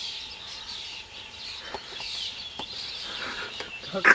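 Small birds chirping and singing in the background: many short, high chirps, with a few faint clicks. A loud voice breaks in near the end.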